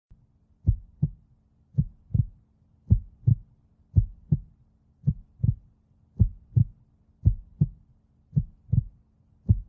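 Heartbeat sound effect: a steady lub-dub of paired deep thumps, a little slower than one beat a second, over a faint steady hum.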